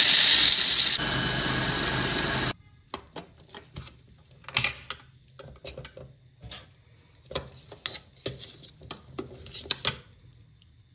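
Food processor grinding whole hazelnuts to a coarse meal, louder for the first second, then cutting off suddenly about two and a half seconds in. After that come scattered clicks, knocks and scrapes as the lid is opened and a spoon scrapes the ground nuts in the plastic bowl.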